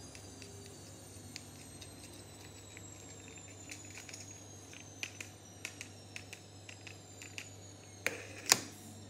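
Scattered light clicks and taps as fingers handle a small plastic object close to the microphone, with two sharper clicks near the end, the second the loudest, over a faint steady low hum.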